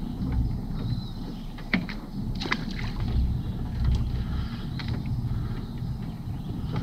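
Wire-mesh crawfish trap rattling and clicking as it is handled, several sharp clicks about two seconds in, over a steady low rumble.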